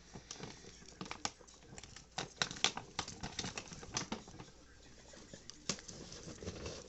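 Dry hay rustling and crackling in a guinea pig cage as the guinea pigs move through it and eat: a run of irregular clicks and crunches, busiest a couple of seconds in.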